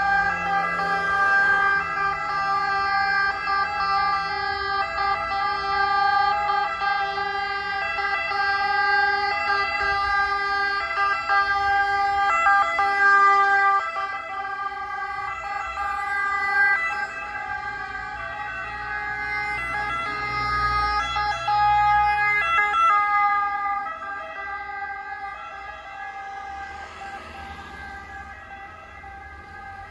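Sirens of several ambulances in a convoy sounding together, steady and loud. A vehicle engine rumbles by about two-thirds of the way through, then the sirens fade as they move away.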